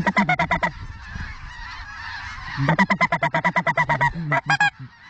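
Canada goose clucks and honks in two quick runs, about ten notes a second, the first short and the second about two seconds long, then a couple of separate honks near the end. A faint chorus of distant geese sits underneath.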